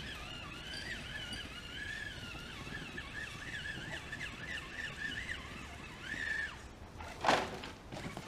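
Electric motor of an RC rock crawler whining as it climbs, its pitch wavering up and down with the throttle. The whine rises briefly and cuts off about six and a half seconds in. A sharp knock comes about a second later.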